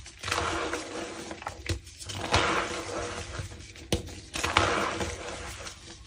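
Gym chalk crunching as it is crushed by hand, in three long crackly bursts with short pauses between them and a couple of sharp snaps.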